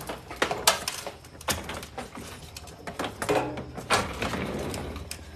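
A scattered series of sharp knocks and clatters over a low steady rumble: a wheeled item being rolled and shifted across a garage floor.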